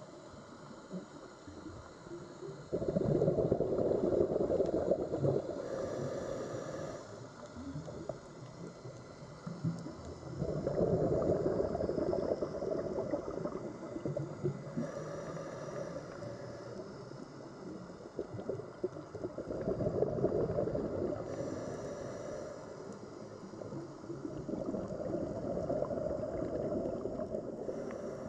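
Scuba diver breathing through a regulator underwater: four loud rushes of exhaled bubbles, each a few seconds long, about every eight seconds, with brief quieter hisses in between.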